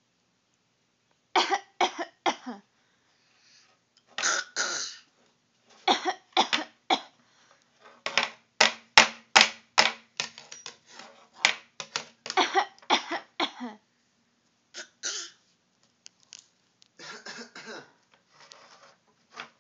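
A person coughing in a series of fits: bouts of two or three coughs, then a fast run of many coughs about halfway through, with pauses between bouts.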